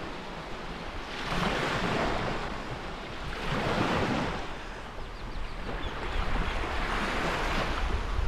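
Small waves washing up on a sandy beach, surging and falling back three times, every two to three seconds, with wind rumbling on the microphone.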